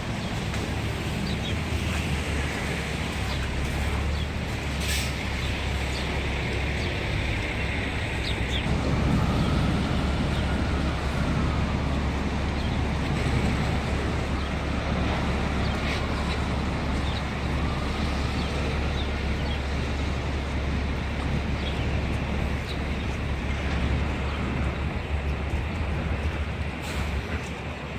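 City street traffic: a steady rumble of passing vehicles, with a few faint rising-and-falling whines in the middle.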